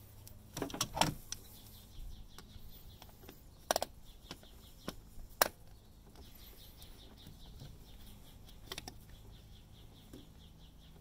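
Scattered sharp metallic clicks and light knocks from groove-joint pliers being set and worked on a spring hose clamp of a coolant hose, with a cluster of clicks about a second in and single ones spread through the rest, over a steady low hum.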